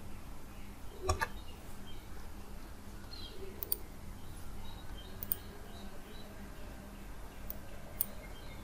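A handful of computer mouse clicks, single sharp clicks a second or two apart, over a faint steady low hum.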